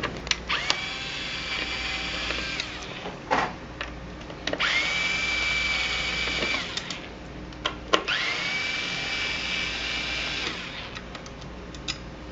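Electric power screwdriver backing out the dryer motor's screws: three runs of about two seconds each, the motor whining up to a steady pitch and stopping, with clicks and knocks of handling between them.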